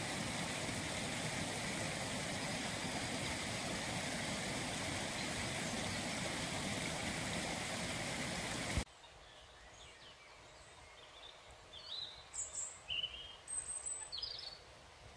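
Steady rush of a small stream flowing. About nine seconds in it cuts off suddenly, and small birds chirp and twitter a few times against quiet outdoor air.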